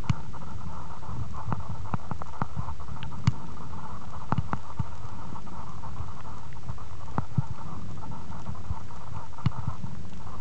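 Muffled underwater ambience picked up by a compact camera sealed in a soft plastic waterproof bag: a steady low rumble and hiss with irregular small clicks and taps scattered through it.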